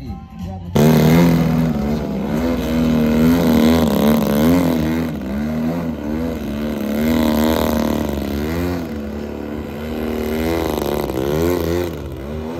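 Radio-controlled model aircraft engine running loud, starting abruptly under a second in, its pitch wavering up and down over and over as the throttle and flight change.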